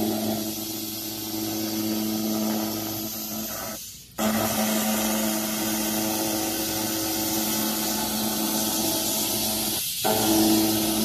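Handheld fiber laser cleaner ablating rust and paint off a steel car body: a steady hiss with a low buzzing hum under it. It breaks off briefly about four seconds in and falters again near the end.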